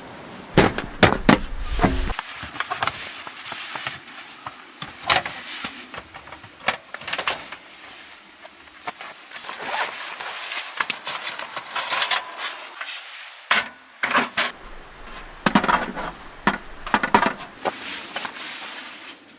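Irregular clicks, knocks and rustling of objects being handled, with clusters of louder knocks about a second in and again near the end.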